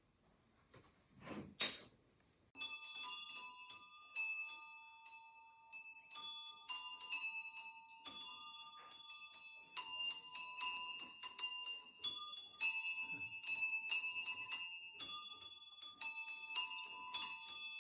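A single sharp knock, then bells struck over and over from about two and a half seconds in, two or three strikes a second, their ringing notes overlapping.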